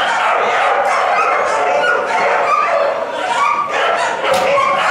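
Several dogs barking and yipping over one another in a continuous, unbroken din, heard in a large indoor hall.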